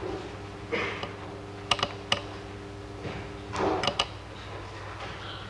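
Scattered sharp clicks and short rustles over a steady low hum, like papers and objects being handled at a desk near the microphones.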